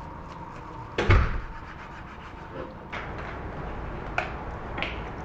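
Kitchen knife striking a wooden cutting board while slicing boiled pork, one loud knock about a second in, followed by a few lighter utensil clicks.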